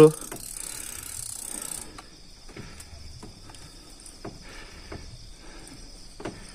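Fishing reel being cranked under load from a large fish, its mechanism giving off irregular faint clicks and ticks.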